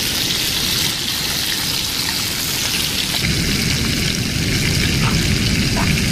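Fish fillets sizzling in a frying pan on a portable gas camp stove: a steady, dense hiss. About halfway through, a low steady rumble joins it.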